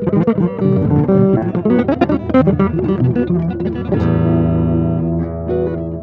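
Solo electric guitar improvising in a free-jazz style: a fast, angular run of picked single notes, then about four seconds in a chord struck and left to ring.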